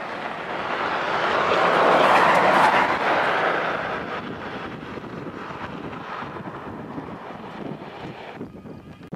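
A vehicle passing close by: a rushing noise that swells to its loudest about two to three seconds in, then fades to a lower steady rumble.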